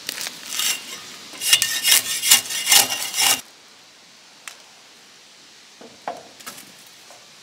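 Steel peeling spade scraping bark off a tamarack log in a quick run of strokes, about five or six, with a metallic ring. They stop suddenly after about three and a half seconds, and a few light knocks follow.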